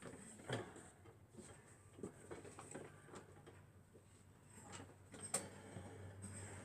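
Faint, scattered clicks and light knocks of hands working inside a push-button adjustable dress form, feeling for a stuck adjusting rod. A faint low hum comes in after about five seconds.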